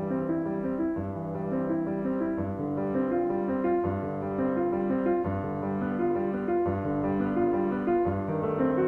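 Background piano music: a continuous run of notes, with no train or other sound standing out.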